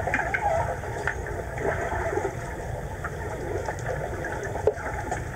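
Swimming-pool ambience heard underwater by a submerged camera: a muffled low rumble with scattered small bubbling sounds, and one sharp click near the end.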